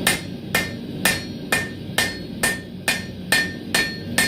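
Blacksmith's hammer striking 10mm square steel bar on an anvil, about ten even blows at roughly two a second, each with a short metallic ring, to tighten a bend in the tong blank.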